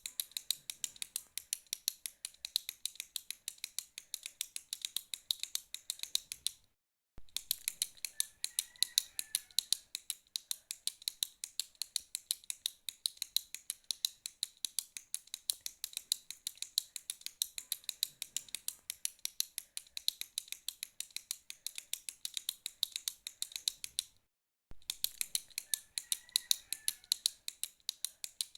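A retractable click pen being clicked in a rapid, steady stream, several crisp clicks a second. The clicking breaks off briefly about seven seconds in and again about twenty-four seconds in.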